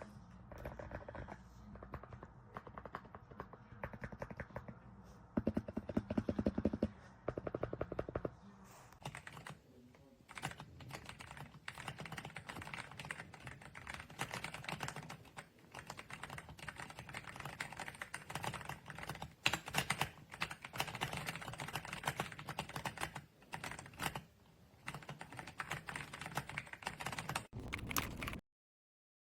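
Typing on an RK Royal Kludge R75 gasket-mounted mechanical keyboard: a fast, uneven clatter of keystrokes that stops suddenly near the end.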